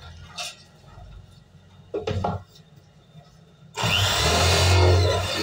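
Two brief handling knocks, then about four seconds in a corded electric drill clamped in a homemade wooden jig starts and runs steadily, its bit boring a hole through an aluminium pipe; the drilling is the loudest sound.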